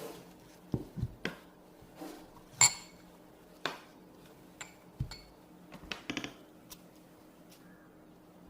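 About a dozen scattered light clinks and taps of small hard objects being handled, some with a brief metallic or glassy ring. The sharpest comes about two and a half seconds in.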